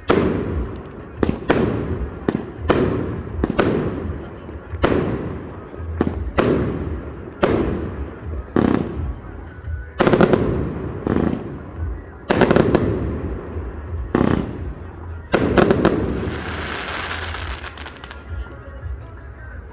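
Fireworks display: shells bursting one after another about once a second, each bang trailing off, then a dense crackling salvo near the end that dies away.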